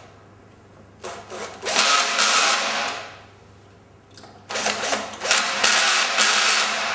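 Cordless drill-driver driving screws into the bottom hinge of an aluminium window sash: two runs of about two seconds each, each starting with a few short blips of the trigger.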